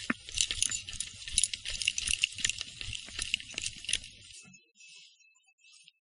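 Via ferrata carabiners and lanyard hardware jangling and clinking rapidly on the harness as the climber moves on foot, over a low rumble with thuds. It cuts off abruptly about four seconds in, leaving only faint sound with a thin steady high tone.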